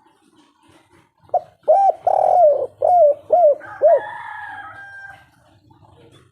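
Spotted dove (tekukur) cooing one 'kuk 3' phrase: a brief note, a long drawn coo, then three short clipped notes, starting about a second in.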